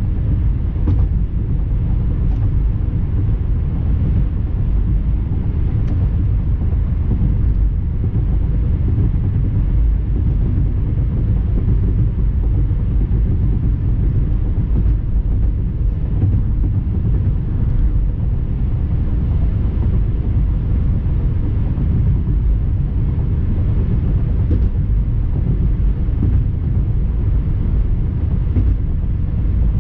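Steady low rumble of a car, engine and road noise, even and unbroken.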